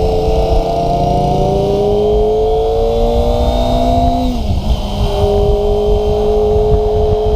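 Kawasaki ZX-25RR's 250 cc inline-four engine under way, its pitch rising steadily for about four seconds as it pulls up through the revs. The pitch then drops sharply and holds steady.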